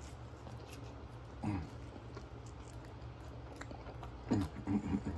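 Close-up chewing of a bite of toasted grilled cheese Spam sandwich: soft, wet mouth clicks of chewing. Two short hums of the voice break in, about a second and a half in and again near the end.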